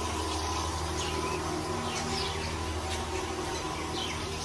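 Small birds chirping, many short high chirps that slide downward in pitch, over a steady low hum.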